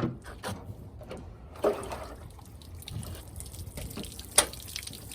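Water splashing and dripping in irregular spurts, with scattered small knocks and one sharp tap near the end.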